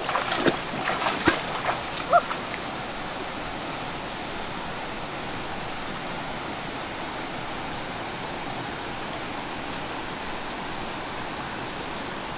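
Splashing steps in a shallow stream for the first couple of seconds, then the steady rushing of the flowing stream water.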